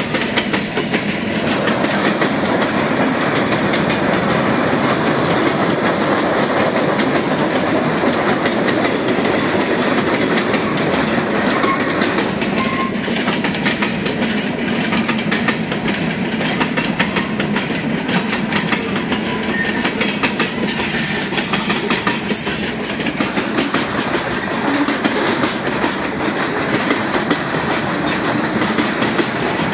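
Freight train cars (covered hoppers) rolling steadily past a grade crossing: a continuous rumble of wheels on rail with dense clickety-clack from the wheels over the joints.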